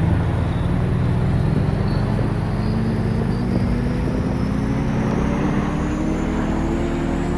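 Jet aircraft engines running with a heavy low rumble, their whine and hum climbing slowly and steadily in pitch as the engines spool up.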